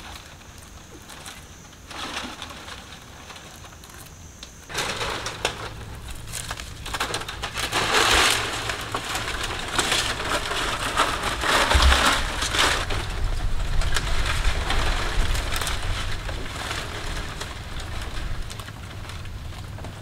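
Dry palmyra palm fronds rustling and crackling as a climber pushes up through the tree's crown, loudest in the middle stretch. A faint steady high whine is heard in the first few seconds.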